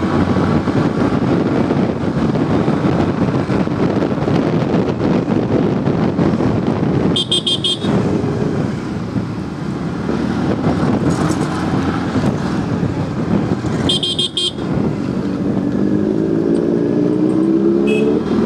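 A scooter riding through town traffic: steady wind and road noise over the running engine, a vehicle horn tooting in quick beeps twice, several seconds apart, and an engine rising in pitch near the end as it speeds up.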